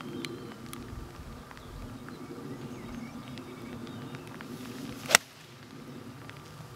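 A single sharp crack of a 7-iron striking a golf ball on a hard full swing, about five seconds in. Underneath is a steady low background hum.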